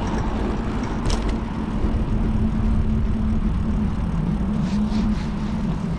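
Steady rumble of riding a bicycle along a paved path, with a low steady hum that drops in pitch briefly around four seconds in and a short click about a second in.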